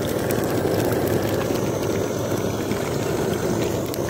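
Chicken lollipops deep-frying in mustard oil: a steady bubbling sizzle with small crackles.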